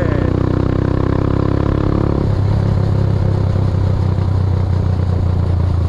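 Motorbike engine running while riding, the engine note changing about two seconds in.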